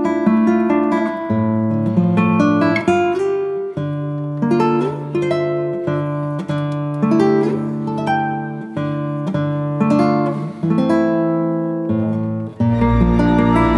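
Background music: an acoustic guitar picking single notes and chords in a steady, gentle pattern. Near the end the music turns fuller, with a deep bass note underneath.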